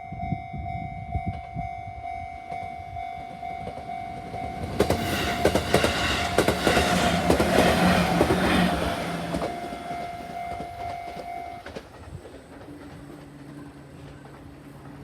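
A train passing at speed, its wheels clicking over the rail joints, loudest in the middle. A level crossing warning signal rings on a steady tone throughout and cuts off about two-thirds of the way through.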